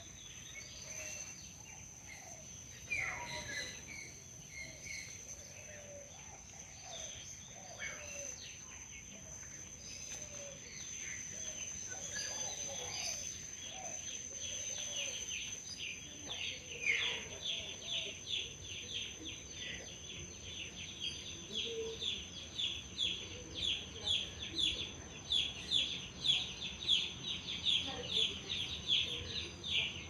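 Birds chirping over a steady high insect whine. About halfway through, a bird starts a rapid run of repeated high chirps, a few a second, growing louder toward the end.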